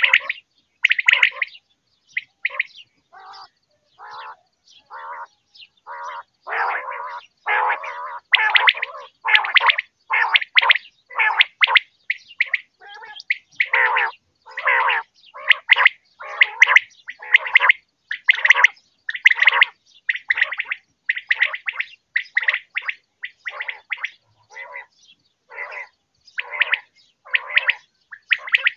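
Quail calling: short calls repeated over and over, about one to two a second, with brief gaps between them.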